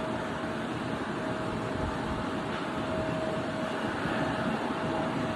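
Steady jet engine noise at an airport: a continuous rumble with a single steady whine held throughout.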